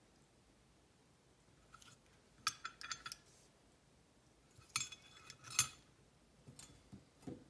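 Small metal lock parts clicking and clinking against each other and a metal parts tray as a Kwikset SmartKey cylinder is taken apart. There is a cluster of clinks about two and a half seconds in, two sharper clinks around five seconds, and a few softer taps near the end.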